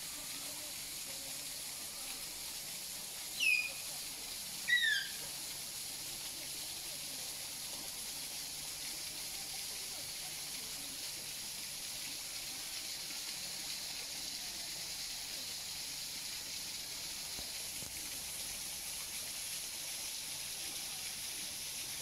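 Steady hiss of rushing water from a waterfall into a pool. Two short, high whistles falling in pitch ring out about three and a half and five seconds in, louder than the water.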